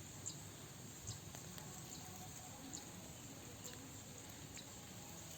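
Faint, steady outdoor background noise with scattered short, high chirps or ticks.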